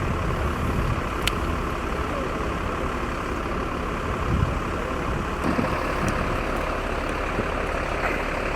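Heavy engine running steadily, with a low rumble and a few faint clicks, one about a second in.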